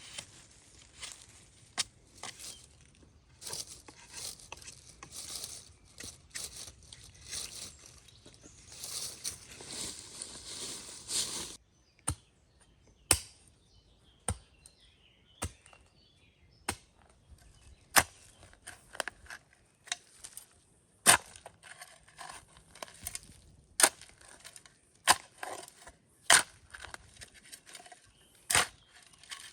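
Dry branches and brush being handled: a dense rustling and crackling, then, after an abrupt change about twelve seconds in, a string of separate sharp cracks and knocks about a second apart, like twigs being snapped or wood being struck.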